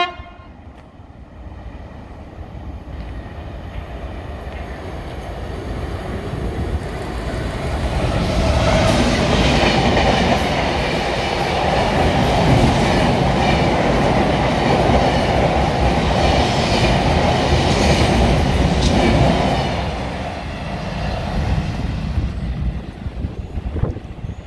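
Diesel-hauled freight train of open box wagons passing through a station. It builds as it approaches, then the wagons' wheels clatter past loudest for about ten seconds, with a high metallic ring over the noise, and it eases as the train draws away.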